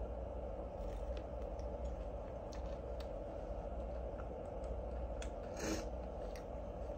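A person eating a chicken wing: faint chewing with small wet mouth clicks over a steady background hum.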